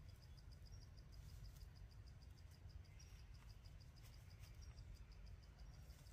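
Faint, even train of high-pitched insect chirps, several a second, over a low rumble.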